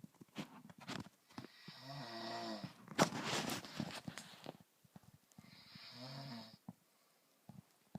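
Snoring: two buzzing, pitched snores, one about a second and a half in and another around six seconds in, with a loud noisy breath between them about three seconds in.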